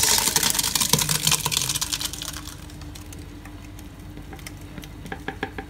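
Ground red pepper pulp sliding out of a plastic bowl into a stainless steel pot: a dense crackling slither of many small clicks for about two and a half seconds, then fading, with a few light clicks near the end.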